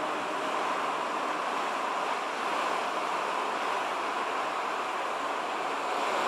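Steady rush of wind and sea water on open ocean, an even hiss with no distinct strokes or tones.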